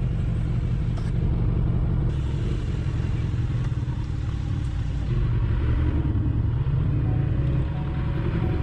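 Kawasaki Ninja 1000's inline-four engine running under the rider as the bike rolls off at low speed, heard as a steady low rumble. It grows louder about five seconds in.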